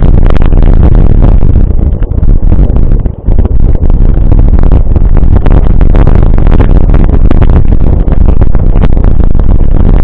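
Mountain bike rattling and clattering over a rough dirt track, with heavy wind rumble on the camera's microphone.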